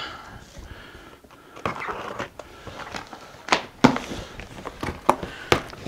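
A cardboard box being opened by hand: cardboard flaps pulled back, with rustling and scraping and a series of sharp clicks and knocks.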